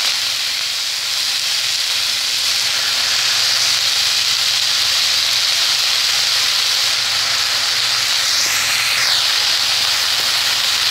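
Washed, chopped amaranth greens (note shak) sizzling in hot oil in a kadai. The water on the wet leaves boils off in a loud, steady hiss.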